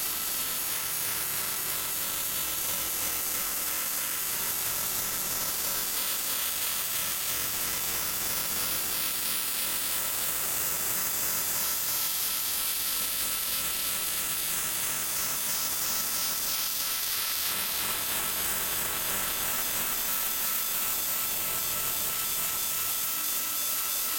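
TIG welding arc on aluminum sheet: a steady, even hiss with a thin high whine running under it.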